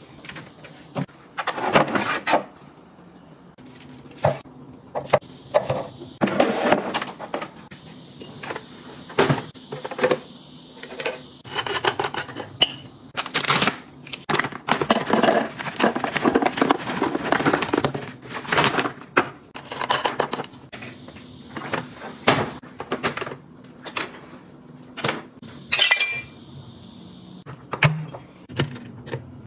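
Kitchen items being handled and put away: a cabinet door opened, then glass jars and bottles set down and clinking against each other and the counter, with a plastic food packet rustling. It comes as a long run of sharp knocks and clinks, with busier stretches of rustling and clattering.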